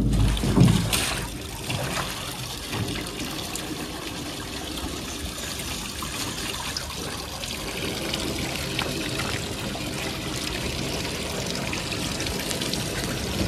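A stream of water, likely from a hose, pours steadily onto a lion's back and runs off into a water trough, with heavier splashing in the first second.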